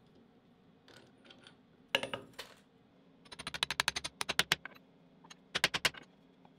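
A hammer tapping a steel shaft-and-flange hub into place on a round wheel blank. One sharp tap comes about two seconds in, then a quick run of about a dozen light taps, and a shorter run of about six near the end.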